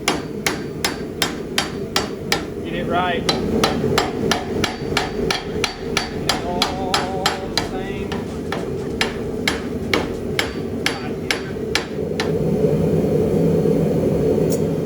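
Hand hammer striking hot steel on an anvil while forging spurs from round stock, a quick even run of about three blows a second that stops about twelve seconds in. A steady rushing noise runs underneath.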